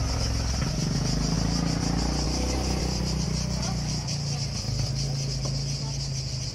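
Chorus of cicadas singing, a steady high buzz with a fine rapid pulse, over a steady low rumble.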